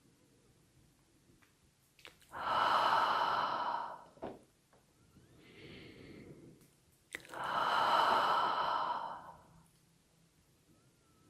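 A person breathing out the qigong heart healing sound: two long, whispered, breathy exhales, about two seconds each, with a softer in-breath between them.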